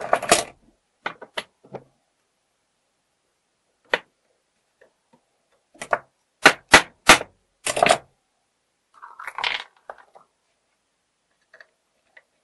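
Cover plate of an old mortise room-door lock being pressed onto the lock case: irregular hard clicks and clacks, with a quick run of about six sharp clicks about six to eight seconds in.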